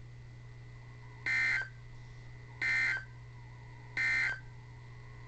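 NOAA Weather Radio EAS/SAME end-of-message data bursts: three short, identical digital bleeps, evenly spaced a little over a second apart, marking the end of the Required Weekly Test. They come through a weather radio receiver's speaker over a steady low hum.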